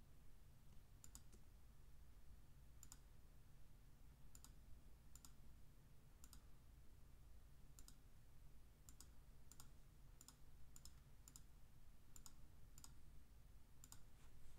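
Computer mouse clicking: about fifteen quiet single clicks at uneven intervals, as points of a lasso selection are laid out in an image editor. A faint low hum lies underneath.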